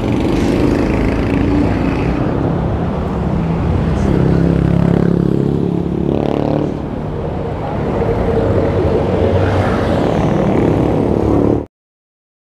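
Motorcycle and car engines in traffic alongside a bicycle on a fast downhill, over a dense rumble of wind on the camera microphone. The sound cuts off suddenly near the end.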